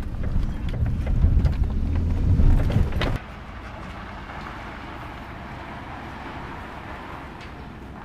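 Kei van engine and road rumble heard inside the cabin, with a few scattered clicks. It cuts off suddenly about three seconds in, leaving a quieter steady outdoor hiss.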